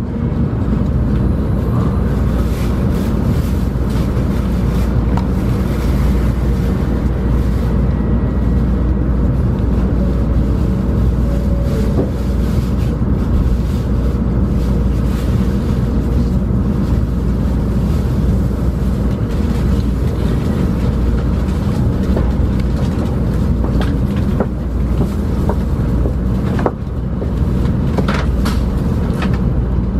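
Steady low rumble inside a Shinkansen bullet-train car standing at the platform, with a few short clicks late on as the train starts to move off.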